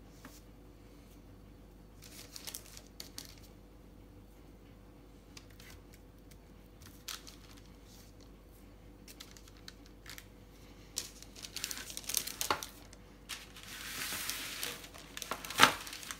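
Baking paper rustling as paper-lined baking sheets are handled and soft dough biscuits are laid on them, with light taps. The rustling gets busier in the last few seconds and ends with a sharp knock.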